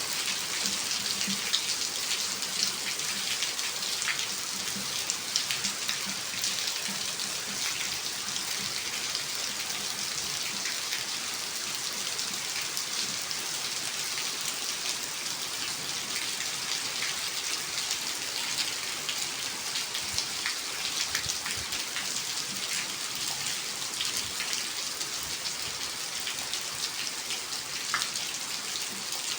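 Steady rain falling: an even hiss with many small sharp ticks of individual drops striking close by.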